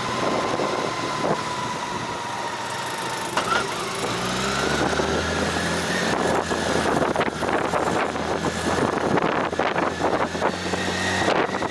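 Motorcycle engine running while riding. About four seconds in it picks up speed, its whine rising in pitch, with rough noise from the wind or the road over the engine.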